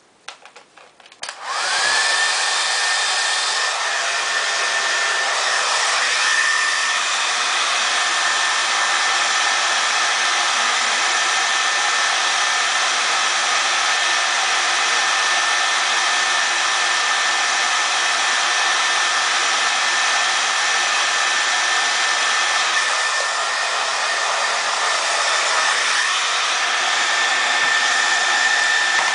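Hand-held hair dryer switched on after a few handling knocks: its motor whine climbs quickly to a steady pitch over a loud rush of blown air and keeps running. Late on the whine dips briefly and comes back up.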